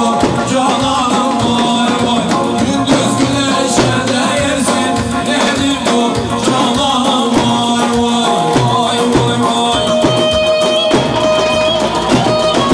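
Loud Turkish folk dance music for a halay line dance, with singing over a steady drum beat.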